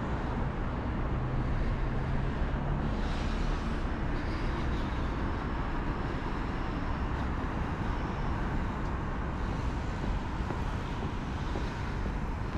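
Steady city road traffic: the even noise of cars and a bus passing on the road below, with a low engine hum in the first few seconds.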